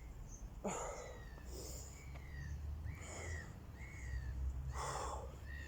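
A small bird repeating short arched chirps, roughly one a second, over a person's heavy breaths and a low steady rumble.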